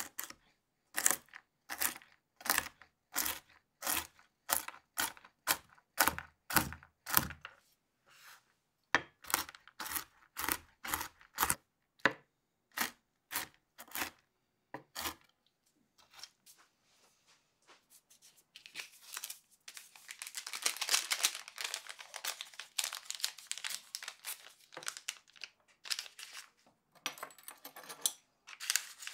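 Chef's knife chopping nuts on a wooden cutting board, about two sharp knocks a second in two runs. This is followed by several seconds of a small paper packet crinkling and tearing open.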